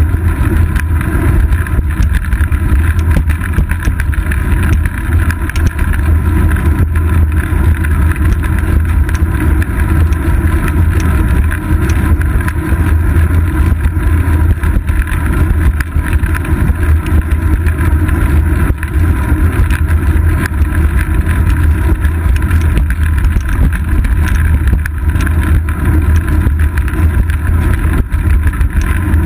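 Steady, loud wind buffeting and low road rumble from a bicycle in motion, heard through a seat-post-mounted GoPro Hero 2 in its housing.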